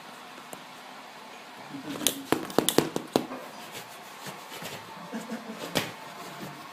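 Handling noise of a phone camera being moved against sofa cushions: a quick flurry of sharp clicks and rustles about two seconds in, and one more sharp click near the end.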